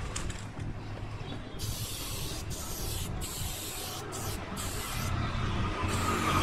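Aerosol spray-paint can hissing as black outlines are sprayed onto a wall, in several bursts with short breaks between them, the hiss starting a second or two in. A low rumble runs underneath.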